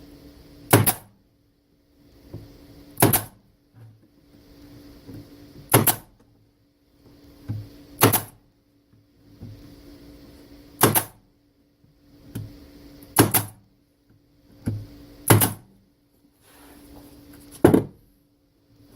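A staple gun firing staples into the wooden parts of Langstroth beehive frames: eight sharp shots, one every two to three seconds, each preceded by a softer shuffle of the work being positioned. A faint steady hum runs underneath.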